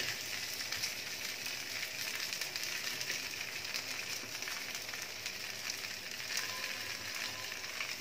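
Potato-masala-coated bread slices frying potato-side down on a lightly oiled tawa over a low flame: a steady, gentle sizzle with fine crackles as the slices are laid in one after another.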